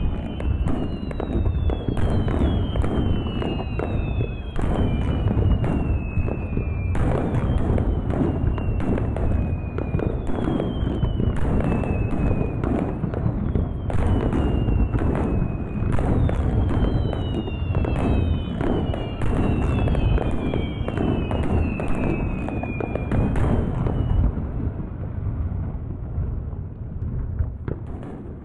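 Fireworks display: a dense run of bangs and crackles over a continuous rumble, with repeated falling whistles from the shells. The bangs and whistles die away near the end.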